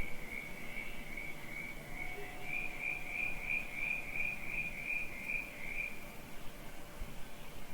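Crickets chirping in a steady pulsing rhythm on one high pitch, about three chirps a second, swelling louder through the middle, with a faint steady hum of other night insects beneath.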